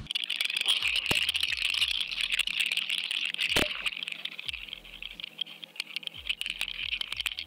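Underwater audio from a GoFish Cam on a fishing line: a steady high hiss with scattered clicks and rattles, and one sharp knock about three and a half seconds in.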